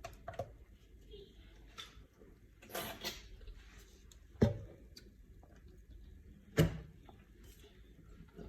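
Kitchen handling noises while ingredients are added for a blender cake batter: a short rustling noise about three seconds in, then two sharp knocks of containers or utensils being set down, about two seconds apart. The blender motor is not running.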